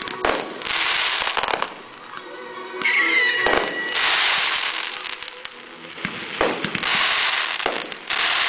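Aerial fireworks shells bursting one after another, each report followed by about a second of dense crackling from crackling-star effects. A rising whistle sounds about three seconds in.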